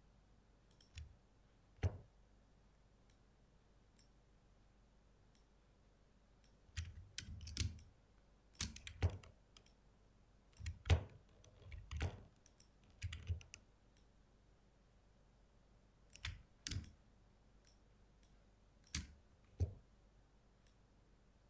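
Computer mouse clicks, irregular and often in quick pairs, with a busier run in the middle, as anchor points are placed with Photoshop's pen tool.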